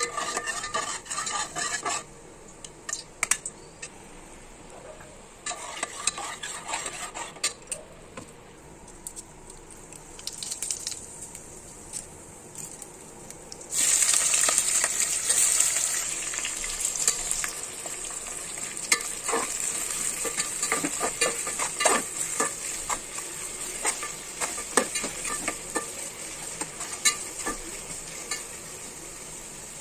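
Hot oil in a metal pot sizzling loudly from about halfway through as whole spices, and later sliced onions, fry in it, with a steel spatula stirring and scraping against the pot. The first half is quieter, with only a few brief bouts of sound.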